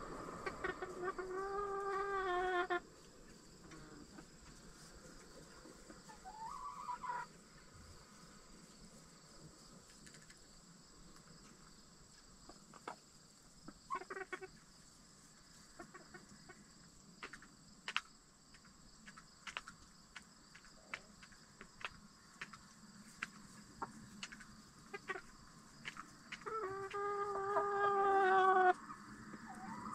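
Backyard chickens: a long, drawn-out pitched call from one bird at the start, getting louder for about two seconds and then cutting off, and another like it near the end. Between them come soft clucks, a short rising call and scattered light clicks.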